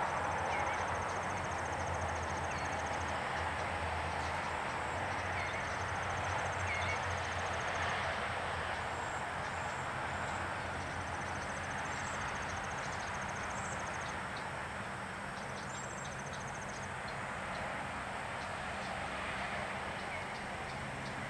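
Outdoor ambience: a steady rushing background noise, with a high, rapid, dry trill repeated about four times, each lasting two to four seconds, and a few faint high chirps.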